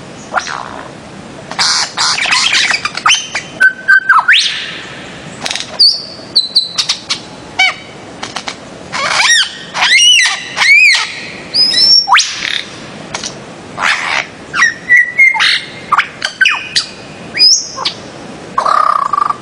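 Birds-of-paradise (Paradisaea) calling: a string of separate loud calls, whistled notes sliding up and down in pitch, with a quick run of repeated arched calls about halfway through.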